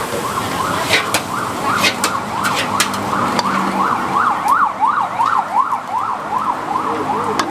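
A siren in rapid yelp mode, its pitch sweeping up and down about three times a second and strongest from about three seconds in. Under it run a steady sizzling hiss and a few sharp clanks.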